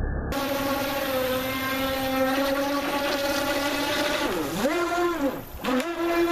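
Brushless electric RC speed boat running at speed, its motor and prop giving a steady high whine. Near the end the whine drops and climbs back up twice as the boat spins out on churned, aerated water where the prop loses its grip.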